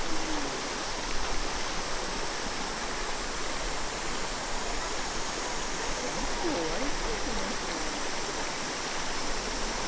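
Steady rush of falling water from a waterfall and its stream, with a few faint wavering voices or calls about six seconds in.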